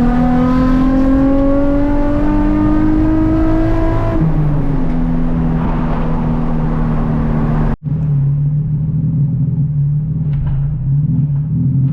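Nissan 350Z's V6 with decatted straight-through exhaust pulling hard, its pitch rising steadily for about four seconds, then dropping to a steady lower drone as the driver lifts or changes gear. A very brief break about eight seconds in, then the steady drone goes on.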